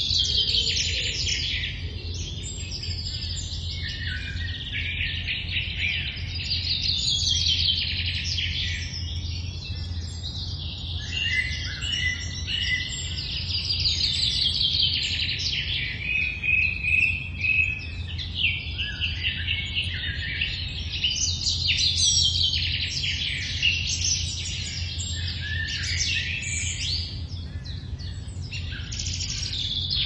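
Early-morning chorus of many songbirds singing at once, overlapping songs and rapid trills, over a steady low hum.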